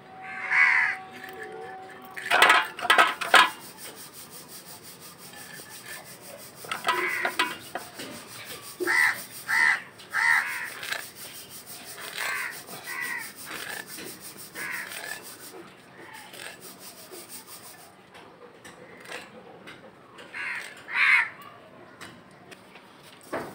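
A large knife blade cutting and chopping walking catfish on a concrete floor, with a quick run of sharp knocks a few seconds in and scraping in between. Crows caw repeatedly throughout.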